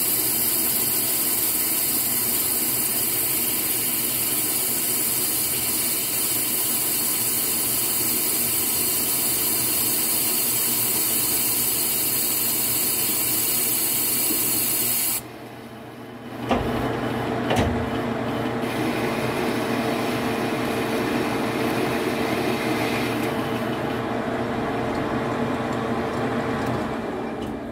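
Metal lathe running while a boring bar cuts the bore of a spinning hub: a steady machining hiss. About halfway through the sound breaks off abruptly, two knocks follow, and the lathe runs on more steadily with a low hum.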